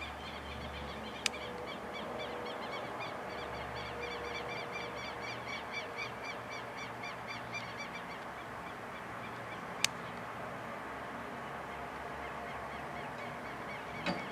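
Night-time animal chorus: many short, high chirping calls repeating steadily at about four a second. Two sharp clicks cut through it, about a second in and again just before ten seconds.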